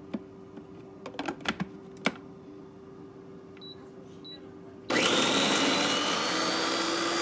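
Homia Dansa baby food maker: clicks as its lid is fitted, two short beeps from its control buttons, then about five seconds in its blender motor starts and runs steadily with a high whine, puréeing cooked peas.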